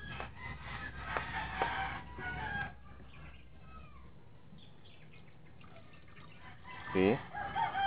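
Chickens clucking and calling: a run of pitched calls in the first two and a half seconds, then quiet, then more calls near the end.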